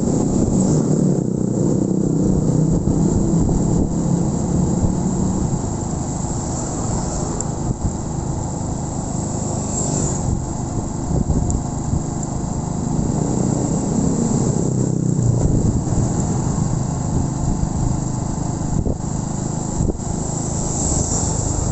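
Honda Win 100 motorcycle's single-cylinder four-stroke engine running steadily under light throttle while riding.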